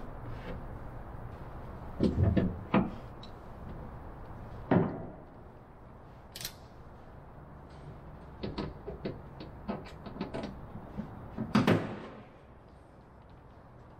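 Knocks and clicks of tools being handled against a wooden aircraft fuselage frame: a few clunks, a run of small clicks, then one loud knock near the end.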